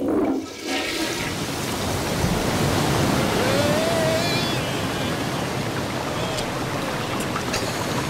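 Rushing floodwater gushing out through an opened wooden sluice gate, starting suddenly and then running loud and steady. About three and a half seconds in, a brief wavering cry rises over the water.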